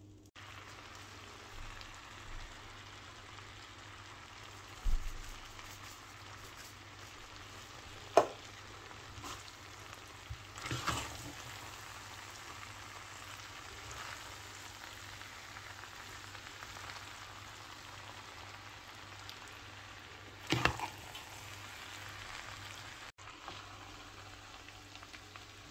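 Pasta in beef keema sauce sizzling on low heat in a frying pan under a glass lid, a steady soft hiss. A few short knocks break through it now and then.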